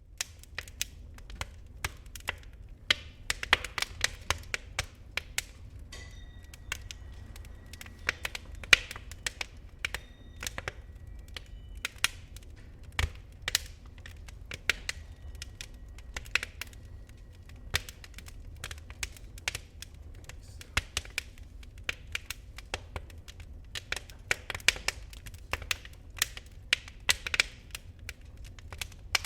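Wood fire in a fireplace crackling, slow-burning down to glowing embers: irregular sharp snaps and pops, some close together, others spaced out.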